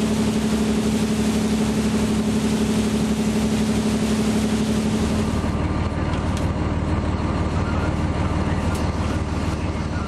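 A boat's engine running steadily under way, with the rushing noise of the wake and water around it. About five seconds in, it gives way to a lower, more muffled engine drone as heard inside the boat's cabin.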